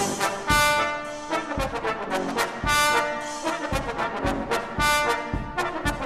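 Background music led by brass instruments, with a steady beat of about one stroke a second.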